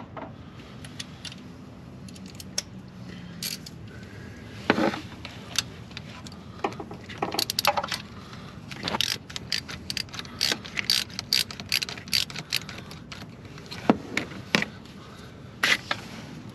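Hand ratchet wrench clicking in short irregular runs, with clinks of metal tools, as a 10mm bolt is worked loose.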